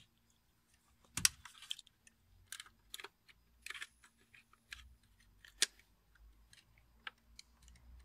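Irregular sharp plastic clicks and rattles of a wiring harness connector and wires being handled and fitted to a BMW E46's light switch unit. The loudest click comes about a second in, with another strong one a little past the middle.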